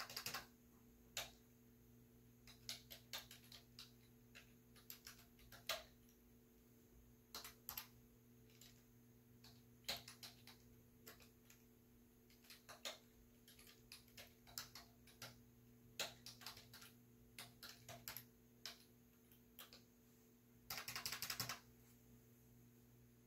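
Typing on a computer keyboard: irregular keystrokes with short pauses between words, and a quick run of rapid keystrokes near the end, over a faint steady hum.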